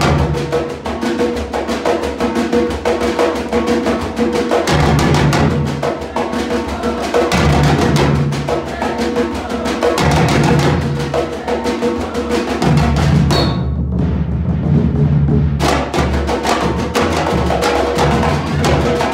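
Brazilian samba drum ensemble playing together: snare drums rattling out a fast steady pattern over surdo bass drums beating a repeating low rhythm. About 13 seconds in, the snare drums stop for about two seconds, leaving only the bass drums, then the whole group comes back in.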